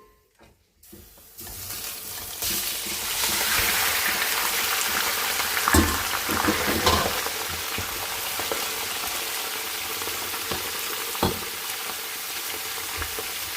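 Chicken pieces frying in hot mustard oil in a pan, a steady sizzle that starts about a second in and grows louder, with a few knocks as the chicken is stirred.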